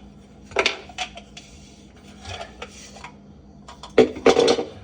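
Drain pipe fittings being handled and pushed together in a dry fit: hard clacks and scraping, a few single knocks and then a louder cluster of knocks about four seconds in.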